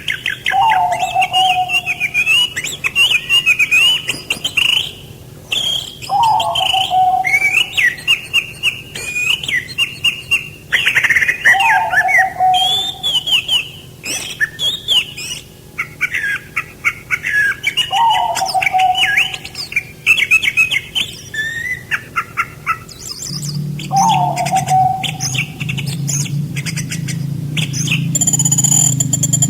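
Several songbirds chirping and trilling in quick overlapping phrases, with a lower falling call repeating about every five to six seconds. A low steady hum joins about three-quarters of the way through.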